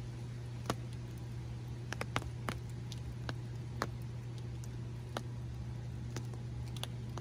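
Scattered raindrops tapping sharply and irregularly close to the microphone, about a dozen in all, over a steady low hum.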